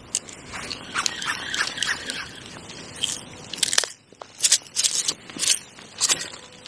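Hands working in a bucket of bait: a string of sharp crunching and scraping sounds with short gaps between them.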